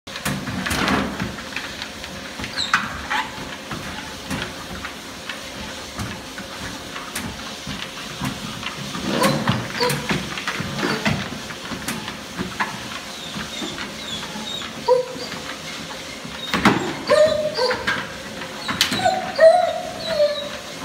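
Treadmills running with a steady hum and scattered knocks of paws on the belts. From about fifteen seconds in, a dog whimpers in short, wavering whines that come more often toward the end.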